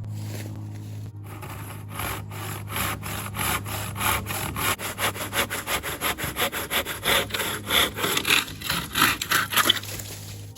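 Handsaw cutting through a fallen tree trunk in fast, even back-and-forth strokes, about three to four a second, growing louder toward the end.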